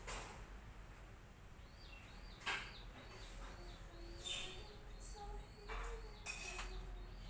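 Sumatran betet parakeets giving short, harsh screeching calls, about five times, over a fast run of short high repeated chirps from another bird or insect.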